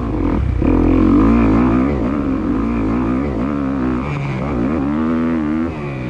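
Motor noise in a motocross FPV chase, its pitch rising and falling again and again with the throttle, loudest about a second in.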